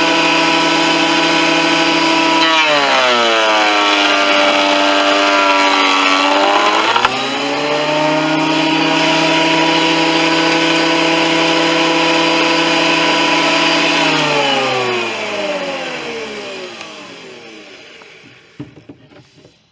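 Performax 15-amp 12-1/2 inch benchtop planer's motor and cutterhead running with a whine. About two and a half seconds in, the pitch sags under load as a board is planed, and it comes back up about seven seconds in. About fourteen seconds in it is switched off and winds down, falling in pitch and fading over several seconds.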